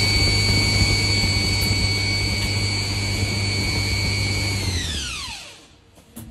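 Automatic coil winding machine running at speed while winding copper wire, a steady high motor whine over a low hum. About five seconds in it spins down with a falling whine and stops, followed by a few light clicks near the end.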